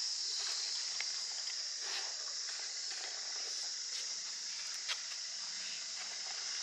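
A few faint metallic clicks of a hand wrench working a nut on an Alto K10 steering rack held in a bench vise, over a steady high-pitched hiss.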